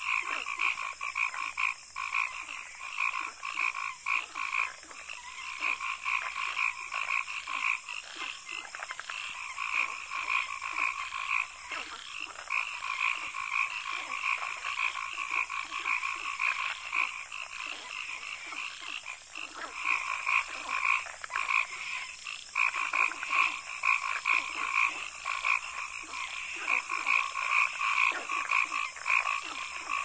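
A dense chorus of frogs calling steadily, with a fast, even high-pitched pulsing running above it.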